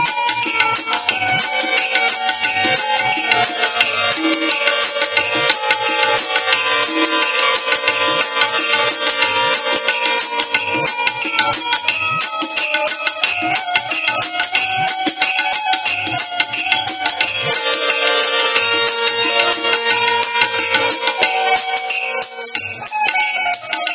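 Instrumental Gujarati folk devotional music: jingling hand percussion keeps a fast, even beat over held melody notes. The music drops back briefly near the end.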